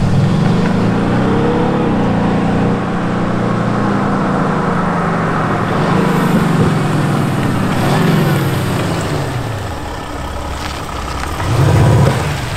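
Mercedes GLE 350d diesel SUV driving up with an aftermarket Active Sound actuator system playing a deep, AMG-style V8 burble over the diesel engine. The revs rise and fall in several surges, with the loudest swell near the end as the car comes close.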